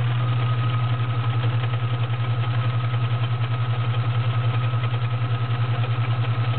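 Kenmore 1357 sewing machine sewing a zigzag stitch at steady speed. Its 1-amp motor gives a steady whine over a rapid, even beat of needle strokes.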